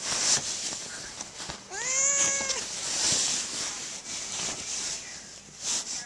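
A domestic cat trapped under a fitted sheet and unable to get out meows once, a drawn-out call calling for help that starts about two seconds in, rises, holds and drops at the end. Bedsheet fabric rustles around it.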